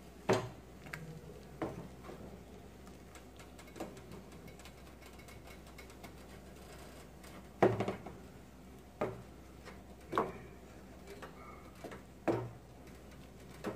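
Wooden spatula stirring liquid in an aluminium pot, knocking against the pot about seven times at irregular intervals, the loudest a little past halfway.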